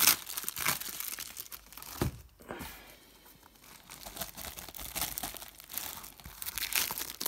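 Plastic packing tape and wrapping crinkling and tearing as a cardboard box is pulled open, with cardboard flaps scraping. Irregular crackles that ease off for about a second midway, then pick up again.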